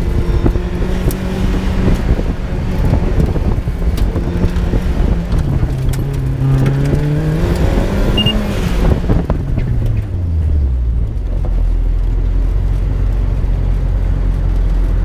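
A Mazda Miata time-attack car's four-cylinder engine, heard from inside the open cockpit, is driven hard around a cone course, its pitch rising and falling with throttle and shifts. About ten seconds in the engine note drops away and settles into a steady low drone at low revs.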